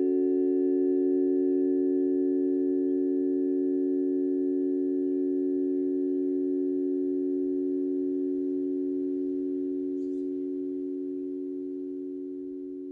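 A chord of three steady pure tones, the planetary-frequency harmony for Jupiter, the North Node and Pluto, held and slowly fading out.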